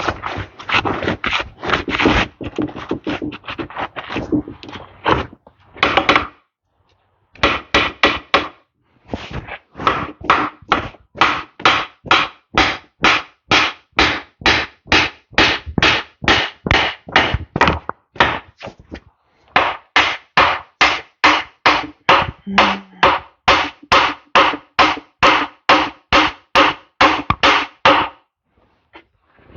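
Hammer blows on metal, about two a second in long runs with a few short breaks, as a stubborn part is beaten to free it.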